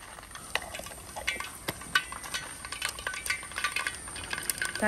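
Mustard seeds popping and spluttering in hot oil in a brass uruli: a scatter of sharp little pops, sparse at first and coming thicker from about three seconds in.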